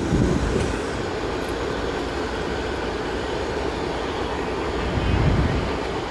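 Two CSX diesel locomotives idling side by side: a steady low engine rumble that swells briefly about five seconds in.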